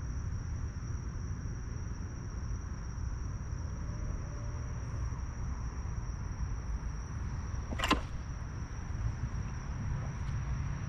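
Steady high-pitched drone of night insects over a low rumble, with one sharp knock about eight seconds in.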